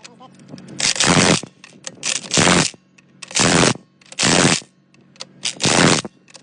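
Pneumatic impact wrench run in short bursts, about seven in all, driving in the wheel hub's bolts on an 18-wheeler, over a steady low hum.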